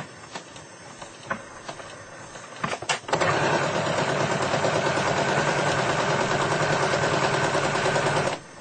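Sewing machine running steadily for about five seconds, stitching along the line where two fabrics meet, after a few light clicks; it stops abruptly near the end.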